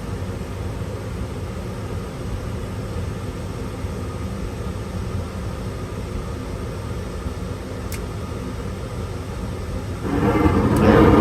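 Gas furnace's draft inducer motor running with a steady hum during the lighting sequence. About ten seconds in, a clearly louder, fuller sound comes in and keeps going.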